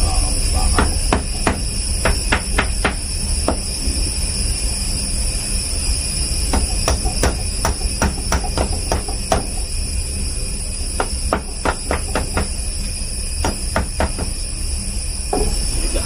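Steel spike striking and working against the strands of a steel wire rope during a thimble eye splice: clusters of sharp metallic taps and clinks, four bursts of rapid strikes, over a steady background hum.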